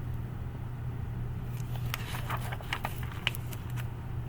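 A steady low hum, with a few short light clicks and rustles from a picture book's pages being handled and turned.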